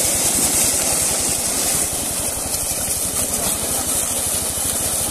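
Dense, steady splashing of many fish thrashing in the shallow water trapped inside a seine net. Under it, the even, rapid putter of an engine running at idle.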